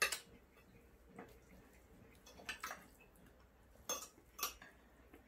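Spoon and fork clinking against ceramic plates while eating, about half a dozen separate sharp clinks.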